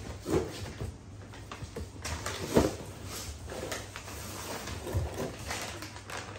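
Handling noises from a cardboard box and packaged dog treat bags being moved about on the floor: rustling with a few knocks, the loudest about two and a half seconds in.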